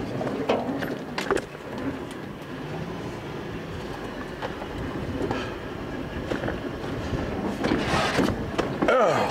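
Inside a vehicle cab jolting over a rough dirt track: a running rumble with scattered knocks and rattles, growing into a louder clatter about eight seconds in.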